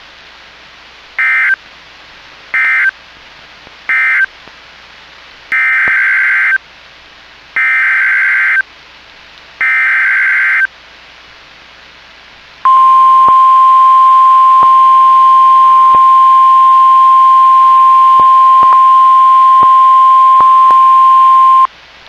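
NOAA Weather Radio Emergency Alert System tones: three short end-of-message data bursts close the first tornado warning, then three longer SAME header bursts announce the next one. They are followed by the steady 1050 Hz warning alarm tone, which is loud, lasts about nine seconds, and cuts off near the end. Faint radio hiss sits between the bursts.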